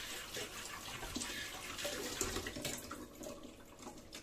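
Kitchen tap running water into the sink, the flow dying down about three seconds in.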